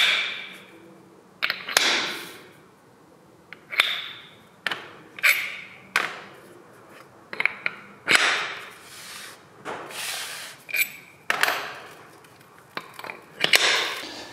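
Steel tubes and rubber-topped pads of height-adjustable lift feet being slotted together and set down on a hard floor: a series of about a dozen metallic clinks and knocks, several ringing briefly.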